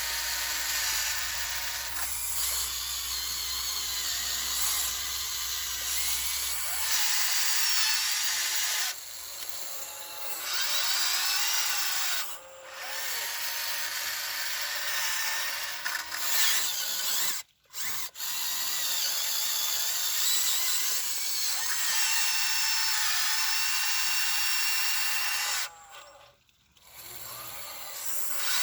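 Electric motors and gearboxes of a Huina 1599 RC excavator whining in runs of a few seconds, stopping and starting as its functions are worked, with the pitch sliding up and down under load.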